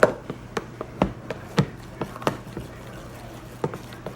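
Utensil knocking and scraping against a bowl while stirring thick slime: irregular clicks, about two to three a second, over a faint steady hum.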